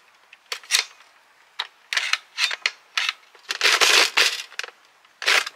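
Hard plastic clacking and scraping as an 18-round Nerf dart magazine is pushed against the Nerf Sabrewing's magazine well: a string of separate knocks with a longer rattling scrape about four seconds in. The magazine will not seat, since the blaster takes none of the standard Nerf magazines.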